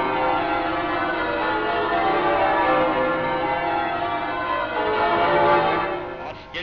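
Church bells pealing, many bells ringing together in a dense, continuous clangour that fades out near the end.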